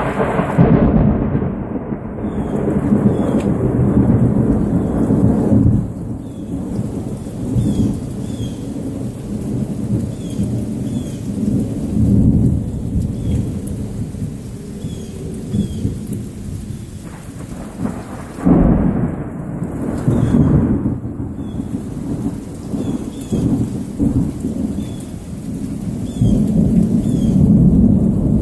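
Thunder rolling and rumbling over steady rain from a thunderstorm that is moving away. A fresh peal breaks suddenly about two-thirds of the way through, and the rumbling swells again near the end.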